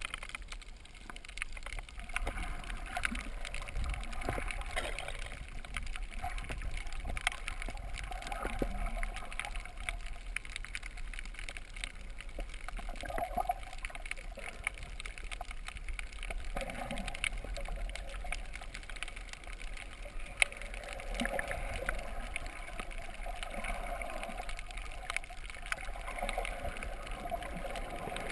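Muffled underwater sound heard through a GoPro's waterproof housing: water sloshing and gurgling, with scattered faint clicks and crackles throughout.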